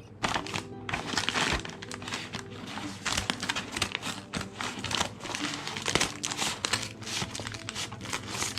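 Packaging crinkling and rustling in quick, irregular crackles as a package is opened by hand, over steady background music.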